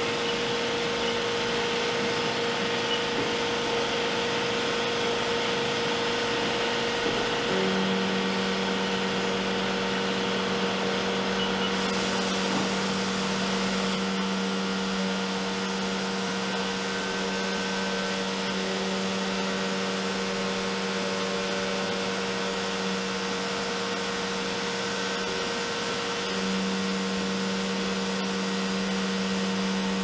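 CNC vertical milling machine cutting metal knife-handle frames under flood coolant: a steady rush of coolant spray and cutting noise over a steady spindle tone. About seven seconds in, a lower steady hum joins.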